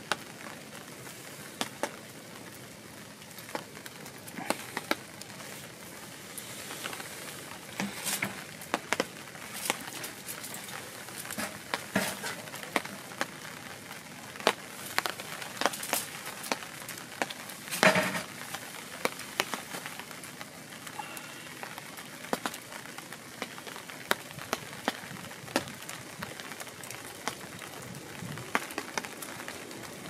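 Wood campfire crackling, with irregular sharp pops over a steady soft hiss, one louder pop about halfway through.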